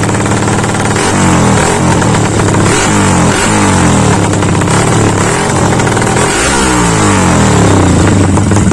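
Yamaha LC135 single-cylinder four-stroke engine with a 65 mm bore upgrade, running through an open AHM M3 exhaust. It idles, then about a second in is revved in several quick throttle blips, each rising and dropping back.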